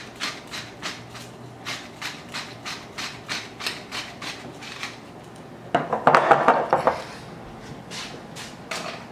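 Hand pepper mill grinding black peppercorns, short crunching grinds at about three a second, with a louder, rougher stretch of about a second around six seconds in.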